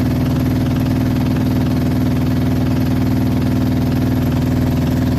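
LG 9 kg washing machine running with a loud, steady hum and vibration, with no change in pitch; the machine's drum counterweight has been diagnosed by a technician as broken.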